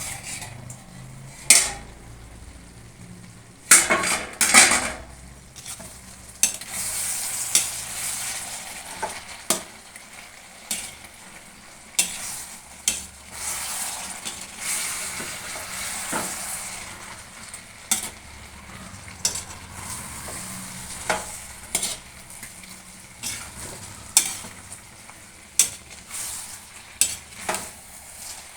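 Potato and eggplant curry sizzling as it fries in a pan while a metal spoon stirs it, with sharp scrapes and knocks of the spoon against the pan every second or two, loudest about four seconds in.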